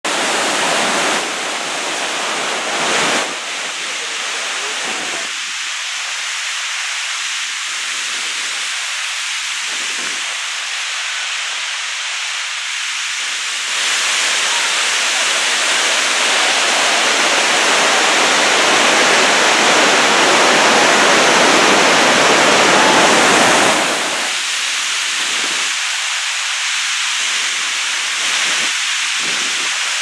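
Marmore Falls pouring: a loud, steady rush of falling water and white water. It swells louder about halfway through and eases back after ten seconds or so.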